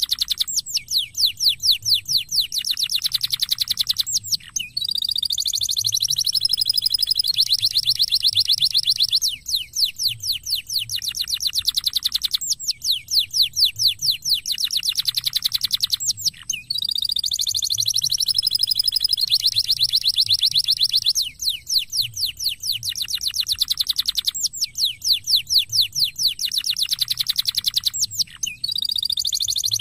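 Domestic canary singing a long song of rapid trills, fast runs of repeated notes with warbled, gliding phrases between them. The same sequence of phrases comes round about every twelve seconds.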